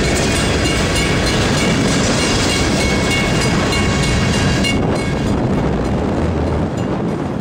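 Freight train of covered hopper cars rolling past close by, wheels rumbling and clacking over the rail joints, with wind buffeting the microphone. The higher, sharper part of the noise drops away about two-thirds of the way in.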